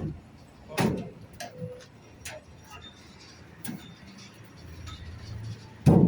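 Irregular knocks and taps of work on a building site, a few seconds apart, with a louder knock just under a second in and heavier knocks near the end.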